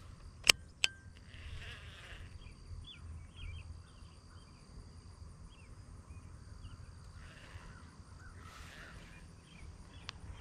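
Two sharp clicks from a baitcasting reel as the cast is made, then quiet outdoor ambience with faint repeated short chirps and a low rumble of wind.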